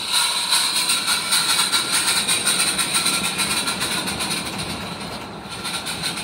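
A 16mm-scale live-steam garden railway train running past close by. The locomotive hisses steam and the wagon wheels click rapidly and rhythmically over the track, fading gradually as the train of coal wagons rolls by.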